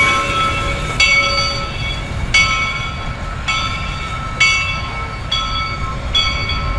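Bell of Reading & Northern steam locomotive 425 ringing about once a second, each stroke sounding suddenly and fading, over the steady low rumble of the moving locomotive.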